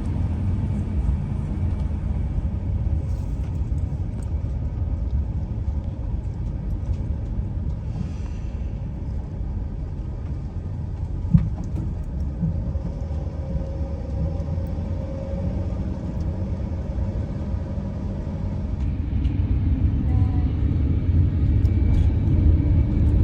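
An RV driving along, heard as a steady low rumble of engine and road noise. A single sharp click comes about eleven seconds in.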